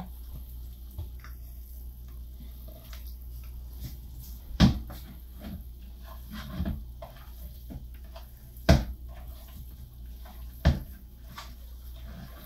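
Kitchen clatter at the counter: a few sharp knocks, the loudest about four and a half, eight and a half and ten and a half seconds in, over a steady low hum.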